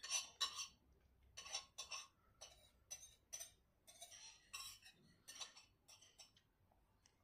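Cutlery clinking and scraping against a plate in a quick, irregular run of short strokes, loudest at first and thinning out toward the end.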